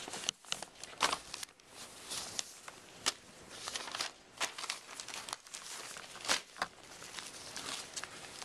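Sheets of paper being handled: irregular rustling and crinkling with several sharp crackles.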